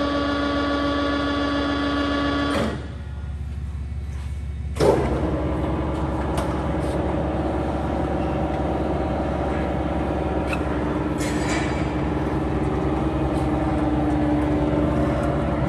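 Blanchard No. 20 vertical rotary surface grinder under power: the wheelhead's power elevation drive runs with a steady whine and stops about three seconds in. After a short lull with only a low hum, another of the machine's drives starts with a clunk and runs steadily with a whine through to the end.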